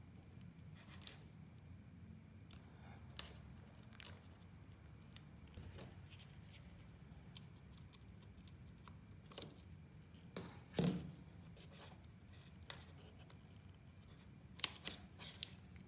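Faint, scattered clicks and snips of small hand tools on a plastic soldering-gun housing and its wiring: cutting pliers snipping at the wires and tools and plastic parts tapping, about a dozen separate clicks. The loudest is a duller knock about eleven seconds in.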